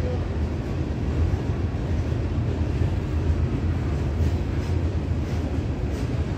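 Train rolling along the elevated tracks: a steady low rumble, with faint regular wheel clicks coming in about four seconds in.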